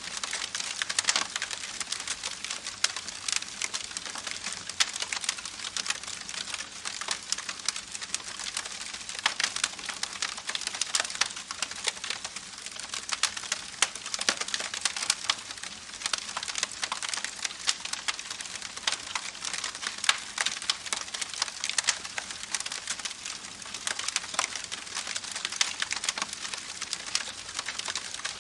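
Campfire burning with a dense, continuous crackle: many small sharp pops over a soft hiss, some louder than the rest.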